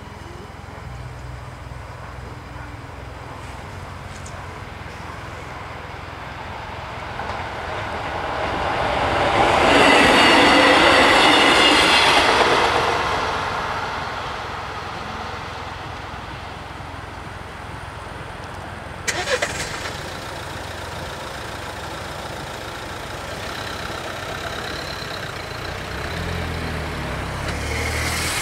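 A regional passenger train passing over a level crossing. Its rumble builds, is loudest for a few seconds about ten seconds in, and fades by about fourteen seconds. About nineteen seconds in there is a short sharp clatter, and near the end a van's engine speeds up as it pulls away over the crossing.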